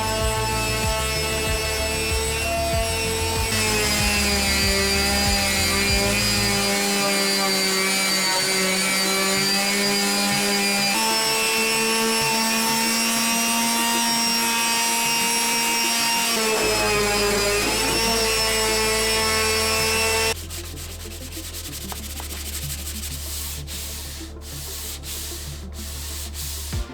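Sustained background music chords over a stepping bass line. About two-thirds of the way in they give way to the quieter, even scratch of wood being sanded, broken by short pauses between strokes near the end.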